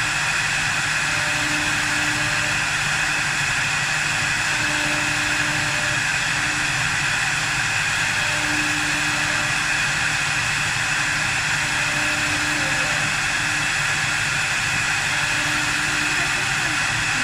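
4-axis CNC wood lathe running steadily: a constant motor hum under an even hiss, with a faint low tone that comes and goes every couple of seconds.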